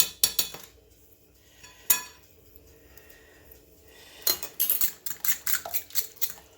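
A metal spoon clinking against a mixing bowl. It gives a few clinks at first, then one sharp knock about two seconds in. From about four seconds in there is a quick run of rapid clinks lasting roughly two seconds.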